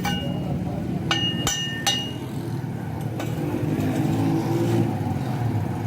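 Steel being struck in a metal workshop: about five sharp metallic clanks, bunched in the first two seconds with one more about three seconds in, several leaving a short bright ring. A steady low engine rumble runs underneath.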